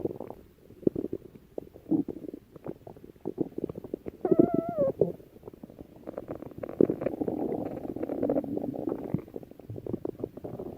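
A stomach growling: irregular low gurgles and rumbles, with a short squeaky pitched tone about four seconds in, then a longer stretch of continuous gurgling.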